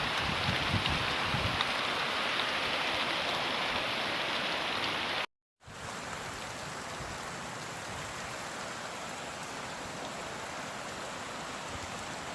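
Heavy rain falling steadily, with wind rumbling on the microphone for the first second or two. About five seconds in, the sound cuts out for a moment, then the rain carries on a little quieter.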